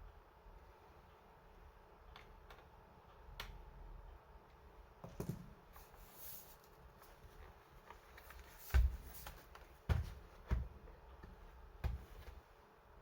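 Scattered clicks and soft knocks from hands handling a laptop, about six in all, the loudest near nine and ten seconds in.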